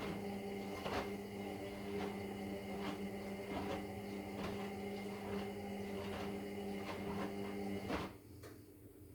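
Indesit EWD71452 washing machine drum tumbling slowly on a wash, driven by its noisy brushed Nidec motor: a steady motor hum with light knocks about once a second. The motor stops about eight seconds in, the pause between tumbles.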